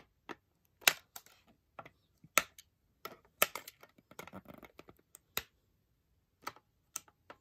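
Scissors snipping the small plastic fasteners that hold toy tops in a clear plastic package: a dozen or so irregular sharp clicks and snips.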